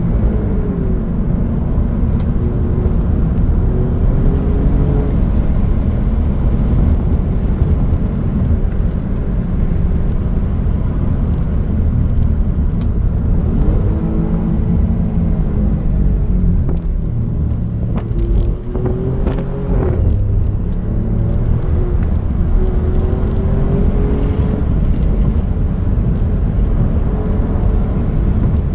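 Alfa Romeo Giulia Quadrifoglio's twin-turbo V6 heard from inside the cabin, driven hard: its pitch rises and falls again and again as the car accelerates and slows, over steady road and tyre noise.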